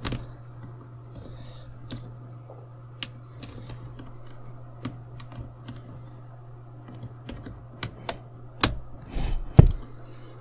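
A plastic spudger prying at the plastic screen bezel of a laptop: scattered small clicks and ticks of plastic on plastic, with two louder snaps near the end as the bezel's catches start to give. A steady low hum runs underneath.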